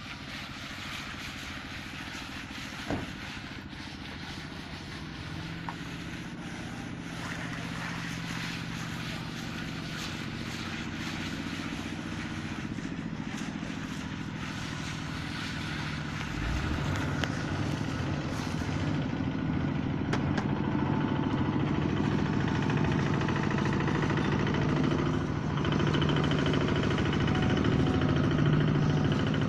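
An engine running steadily with a low hum, getting gradually louder and stepping up in volume about halfway through.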